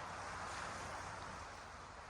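Sea waves washing on the shore: a steady hiss of surf that swells a little, then eases after about a second and a half.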